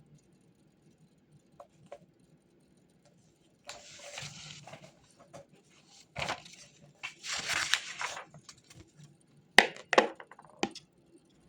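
Desk handling noises: two stretches of papery rustling, then a few sharp clicks and knocks, the loudest two close together about ten seconds in.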